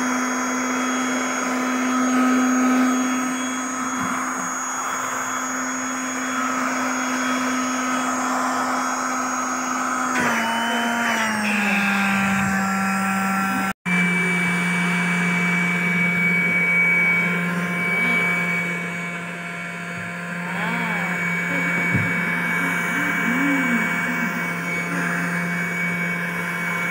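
Electric air pump running steadily with a motor hum, blowing up a ring of an inflatable swimming pool. Its pitch drops about ten seconds in, the sound cuts out for an instant a few seconds later, and the pump then runs on at the lower pitch.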